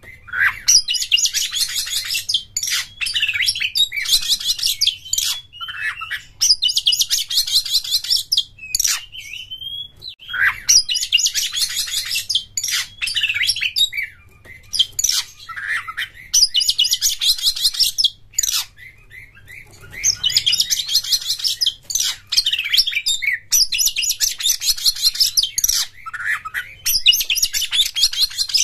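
Oriental magpie-robin (kacer) singing in the fast stuttering 'konslet' style: repeated bursts of rapid, high chattering trills, each a second or two long, broken by short slurred whistles and brief pauses.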